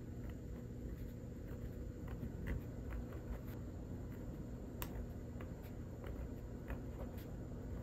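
Faint, scattered ticks and scratches of a fine-tip marker writing small characters on paper, over a steady low hum.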